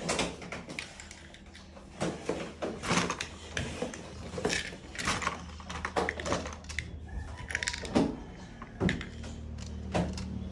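Plastic Lego bricks being handled and knocked together: irregular light clicks and clatters, several a second at times, over a low steady hum.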